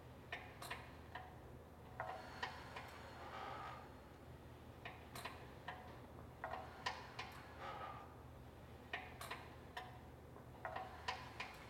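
Pilates Allegro reformer clicking and rattling faintly, in small clusters of ticks every couple of seconds, as a leg lifts and lowers in its rope strap.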